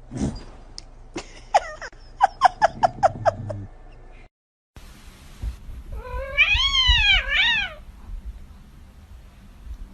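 A cat making a quick run of about eight short chirps, then, after a break, a long meow that rises and falls in pitch, followed straight away by a shorter meow.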